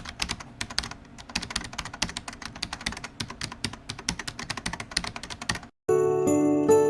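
Rapid computer-keyboard typing, a quick patter of key clicks that cuts off suddenly after about five and a half seconds. Music with bright bell-like tones starts just after.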